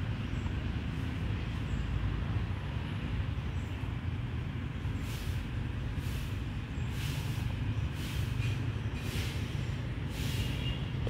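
Steady low background rumble. From about halfway in, a kitten gives short hissy sniffs, about one a second, as it noses at a nylon backpack.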